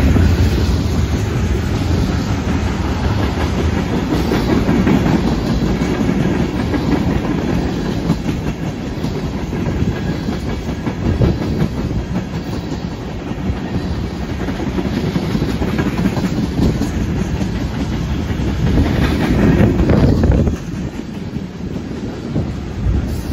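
Freight train tank cars and a covered hopper rolling past: a steady rumble of steel wheels on rail, with wheels clicking over the rail joints. It grows louder near the end, then drops off suddenly.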